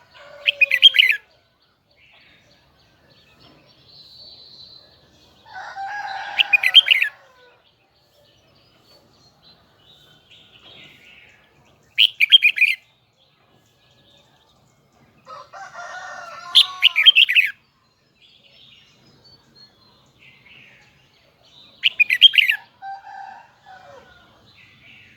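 Red-whiskered bulbul singing: five loud, high phrases about every five seconds, several led in by lower warbling notes.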